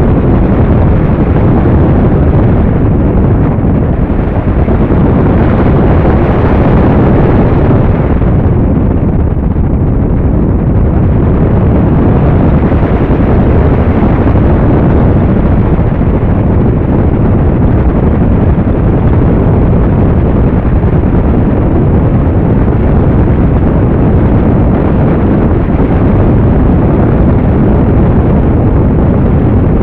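Loud, steady wind rush buffeting an onboard camera's microphone as an RC model plane flies, a low rumbling roar that eases slightly for a few seconds partway through.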